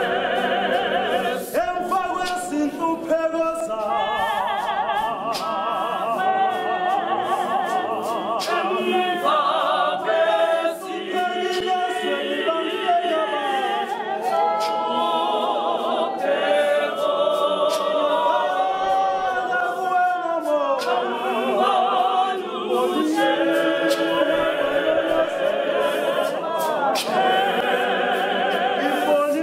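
A choir of young women singing together unaccompanied, several voices moving through a slow, flowing melody.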